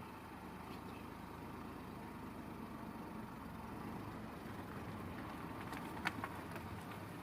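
Steady low rumble of a motor vehicle, with a sharp click about six seconds in.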